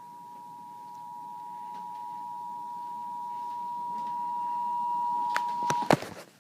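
Emergency Alert System attention signal: two steady tones sounding together (853 and 960 Hz), gradually getting louder, then cutting off near the end with a few sharp clicks.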